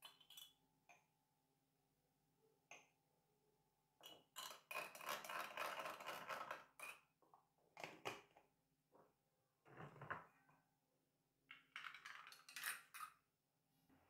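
Faint clinks of a metal teaspoon on a small glass coffee jug: a few single taps as ground coffee is spooned in, then rapid clinking for about three seconds as it is stirred. Afterwards come a few knocks and clicks, with another short run of clinking near the end.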